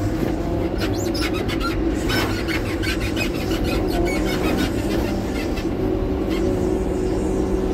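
Caterpillar front-end loader's diesel engine running, heard from inside its cab: a steady drone with a wavering whine on top and many small rattles and clicks from the machine at work.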